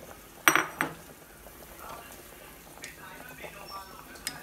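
Soup simmering in a stainless steel saucepan on a gas burner, with two sharp ringing clinks about half a second in and a smaller click near the end.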